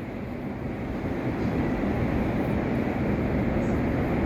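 Heavy sea waves surging and breaking in a continuous low roar of surf that swells slightly in the first second and then holds steady.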